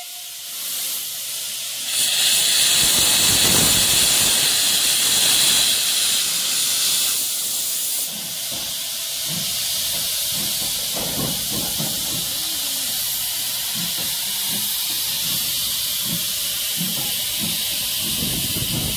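1940 W.G. Bagnall 0-4-0 saddle tank steam locomotive 'Dunlop No. 6' hissing steam, loudest for the first several seconds and then settling to a steady hiss with soft low beats as it moves off slowly.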